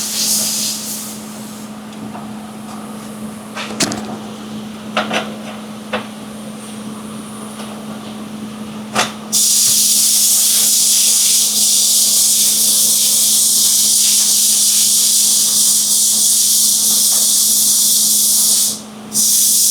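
A few separate knocks, then a welding arc hissing loudly and evenly for about nine seconds, breaking off briefly near the end and starting again, over a steady electrical hum.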